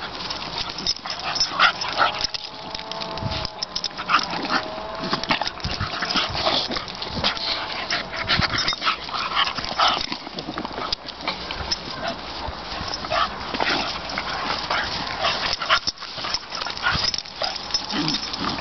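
Two dogs play-fighting: short yips and whimpers mixed with scuffling in the grass, and a drawn-out wavering whine a few seconds in.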